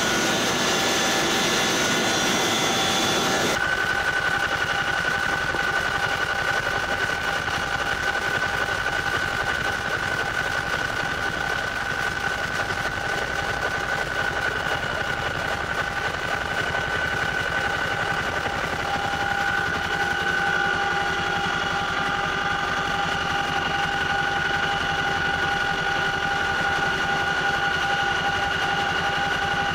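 Helicopter running steadily, a high whine holding over the rotor noise. The sound changes abruptly about three and a half seconds in, then stays steady.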